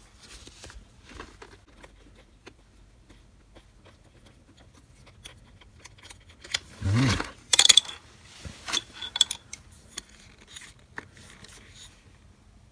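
Scattered clicks and small handling noises of plastic and metal tool parts being fitted and locked in place, with a brief low thump about seven seconds in and a quick run of sharp clicks just after it.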